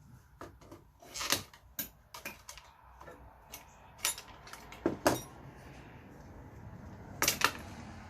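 Irregular clinks and clatters of small metal computer parts being handled, sorted and dropped during dismantling, with louder knocks about a second in, around five seconds in, and near the end.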